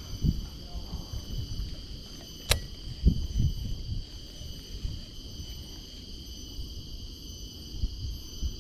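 Steady high-pitched insect chorus over an uneven low rumble of wind and handling noise, with one sharp click about two and a half seconds in.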